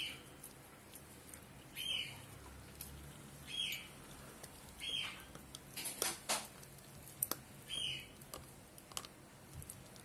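Indian mastiff (Bully Kutta) puppy gnawing a dried chew bone: teeth scraping and clicking on the chew, with a short high squeak every second or two and a few sharp cracks a little past the middle.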